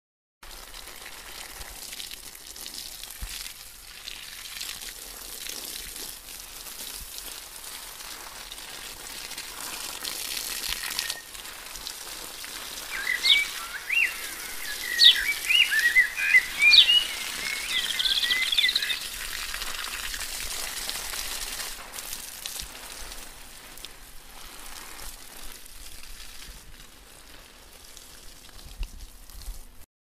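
Steady hiss, with a run of quick, high chirping calls for several seconds in the middle.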